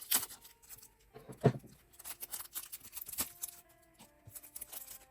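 Card packaging being handled and opened by hand: crinkling plastic and small clicks, with a louder thump about one and a half seconds in.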